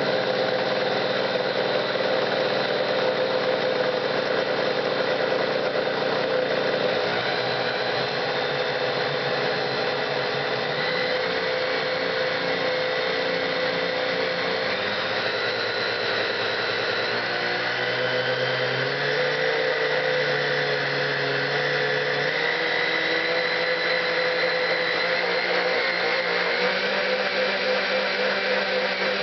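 Vintage Kenmore 14-speed solid-state blender motor running continuously as it is switched up through its speeds, the motor's pitch changing in steps several times.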